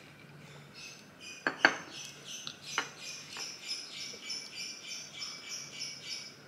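Close-up eating of a stroopwafel. A few loud, sudden cracks as it is bitten about a second and a half in, then steady crunchy chewing at about three crunches a second.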